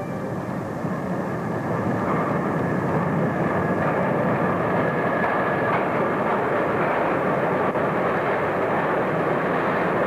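Subway train running, a steady noise that grows louder about two seconds in.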